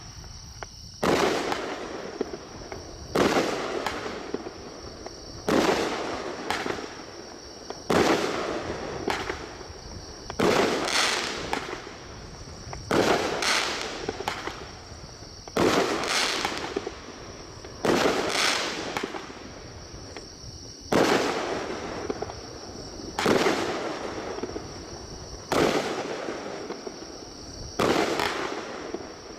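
A 200-gram multi-shot aerial firework cake firing about a dozen shots, one sharp bang roughly every two seconds, each trailing off in a fading crackle before the next.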